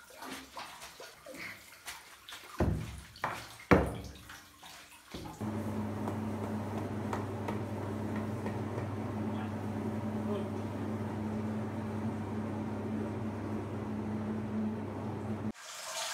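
A wooden paddle punching down crushed grapes and stems in a vat: wet squelches and knocks, with a few louder hits a few seconds in. About five seconds in, a steady machine hum starts and runs until it cuts off just before the end.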